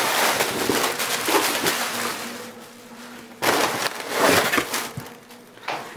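Plastic wrapping crinkling and rustling against cardboard as an item is unpacked from its shipping box. It comes in two bursts: a long one at first, and a second starting about halfway through.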